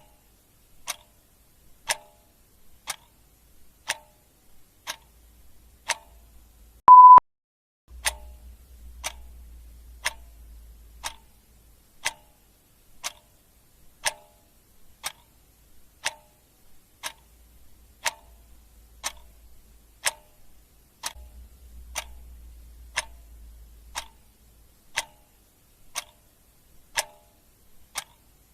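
Ticking clock sound effect, one sharp tick every second. About seven seconds in, a short, loud single-pitched beep sounds, louder than the ticks.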